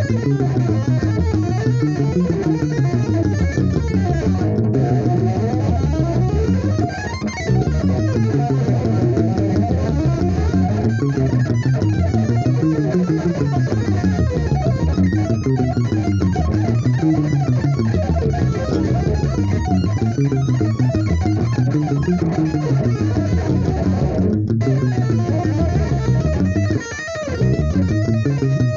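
Electric guitar played with two-handed tapping: a continuous stream of fast notes in rising and falling arpeggio runs, with two brief breaks, one about a quarter of the way in and one near the end.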